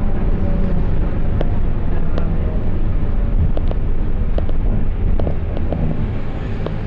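Mercedes-Benz OF1721 diesel bus under way, its rear differential growling in a steady low drone over the running noise, with scattered light rattles. The growl is the differential noise the recording sets out to show.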